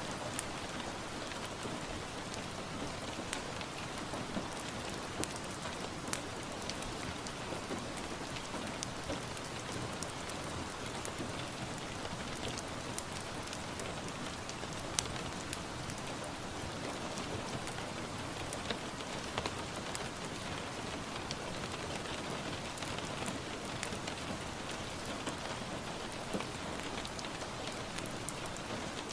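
Steady rain, with scattered sharp crackles and pops from a wood fire.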